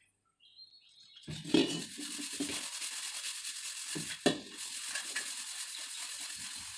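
A brass pot being scrubbed by hand with a scrub pad and Pitambari polishing powder: steady rubbing that starts about a second in, with a few light knocks of the pot.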